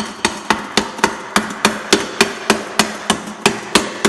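Rapid, steady hammer blows, about four a second, each a sharp ringing strike, knocking at a stuck cast aluminium part to free it.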